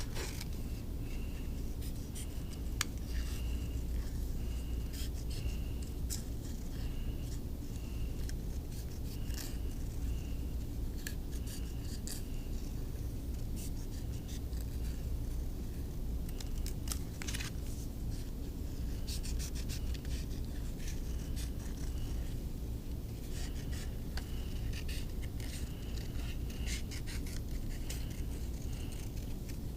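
Hand craft work on paper: scratching and rubbing strokes with scattered short clicks, over a steady low hum.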